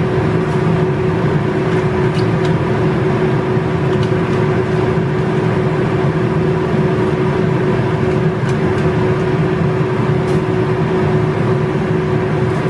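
Steady machine hum with one constant tone, unchanging in level.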